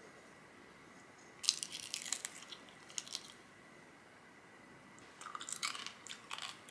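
Two bursts of crisp crunching and crackling, the first about a second and a half in and the second near the end.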